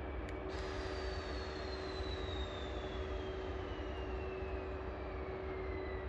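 EF81 electric locomotive running light and moving off slowly: a steady electric hum over a low rumble, with a high whine that falls steadily in pitch.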